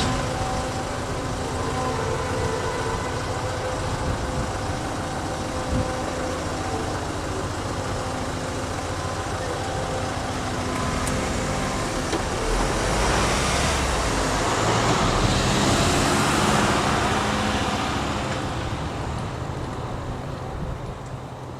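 Road vehicle noise after the train has gone: a steady hum, then a vehicle passing by, its rush swelling and dying away over several seconds in the middle. The sound fades down near the end.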